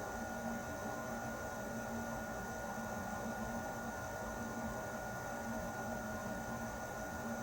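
Air conditioner running steadily: an even rush of air with a constant hum and a faint higher steady tone.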